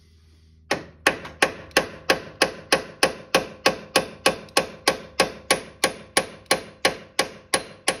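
Hammer blows on a large steel punch, a steady run of sharp metal-on-metal strikes at about three a second, starting about a second in. The punch is driving a tight-fitting part home into its seat.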